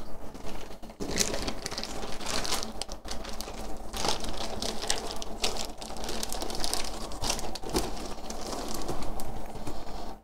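Nylon fabric flap of a foil-lined grow-tent enclosure rustling and crinkling as it is pulled open and rolled back by hand, a run of irregular crackles.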